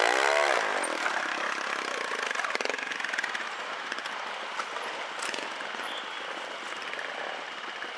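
Trial motorcycle engine blipped once near the start, its pitch rising and falling, then running on at a lower, steadier level.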